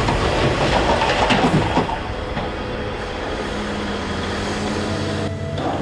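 Volvo excavator's diesel engine running steadily, with a few metallic clanks in the first two seconds.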